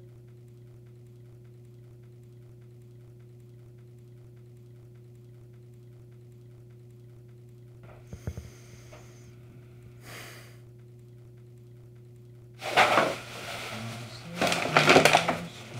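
A steady low hum, then near the end a plastic garbage bag rustling and crinkling loudly as trash is stuffed into it.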